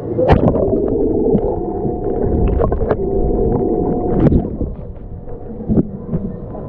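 Muffled underwater sound of pool water heard through a submerged camera: sloshing and gurgling with sharp clicks and knocks, and a steady hum from about one and a half to four seconds in.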